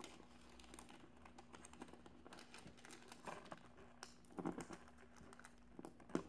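Faint crinkling and small clicks of Mylar foil pinwheel blades being handled by fingers and pulled over the center pin, with a few louder rustles about three, four and a half and six seconds in.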